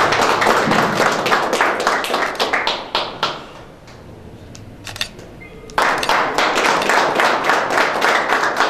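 A small group applauding with dense hand-clapping. The clapping dies away a few seconds in, then comes back abruptly at full strength about two-thirds of the way through.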